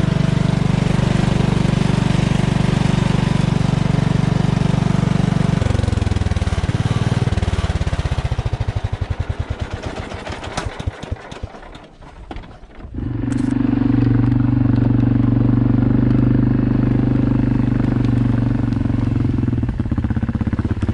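A Cub Cadet riding mower's engine runs steadily, then is shut off about 6 seconds in and chugs down to a stop, its beats slowing over several seconds. About 13 seconds in, a different engine, an Arctic Cat DVX ATV's, takes over at a steady idle.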